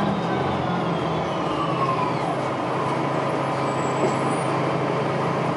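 Bus engine and drivetrain running, heard from inside the passenger cabin: a steady low engine hum with road rumble, and a faint whine that falls in pitch as the bus slows toward a stop.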